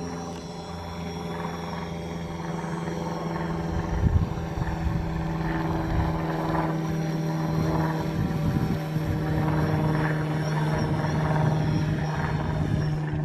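DJI Phantom 4 quadcopter's propellers humming at a steady pitch while it flies, with a brief louder rustle about four seconds in.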